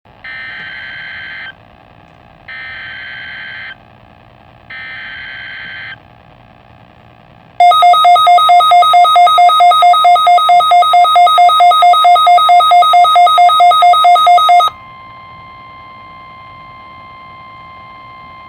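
Emergency Alert System tones: three short bursts of the warbling digital header, each about a second long with a gap between, then a loud pulsing two-pitch alert tone for about seven seconds. This cuts off suddenly into a quieter steady single tone.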